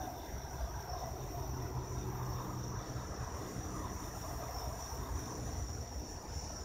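Steady chorus of crickets calling at night, a continuous high trilling, with a low rumble underneath.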